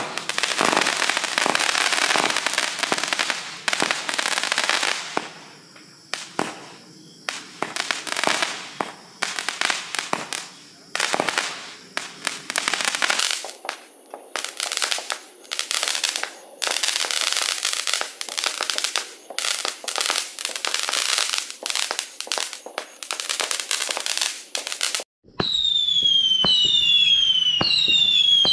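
Multi-shot consumer firework cake firing: a rapid run of launch shots and dense crackling bursts for about 25 seconds. After a sudden break, a whistling-tail cake takes over, its shots giving a string of shrill whistles that each dip a little in pitch.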